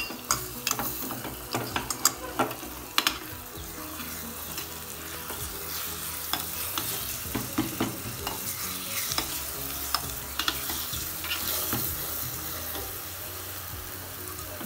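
A tadka of green chilli, ginger and garlic paste with curry leaves sizzling in hot oil in a small steel pan. A steel spoon stirs it, scraping and clicking against the pan, with the sharpest clicks in the first three seconds.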